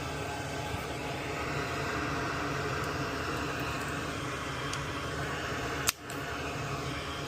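Steady hiss of blowing air, like a fan or a hot-air tool, with one sharp click about six seconds in.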